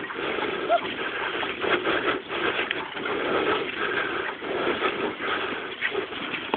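Dog scooter rolling fast over a dirt path behind a pair of running huskies: a steady rough rumble of the wheels with a few sharp knocks and rattles.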